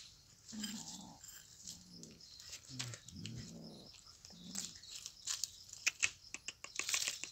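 A cat growling low in several short bouts over its caught mouse, followed by a quick run of scratchy clicks as it scuffles and pounces on dry dirt and debris.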